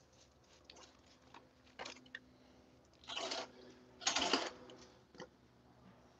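Two short scuffing noises about a second apart, with a few faint clicks around them.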